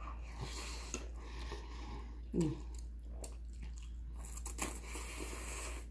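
Close-miked mouth sounds of eating baked chili cheese spaghetti: noodle strands sucked in and chewed, with small wet smacks and clicks. A brief hum of the voice comes about two and a half seconds in, over a steady low hum.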